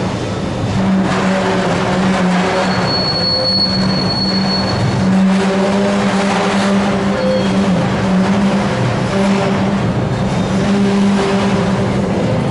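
A freight train being shunted along rails by a DFB-class diesel-electric locomotive, with a steady low drone throughout. A thin, high wheel squeal comes in a few seconds in, and the wagons roll past near the end.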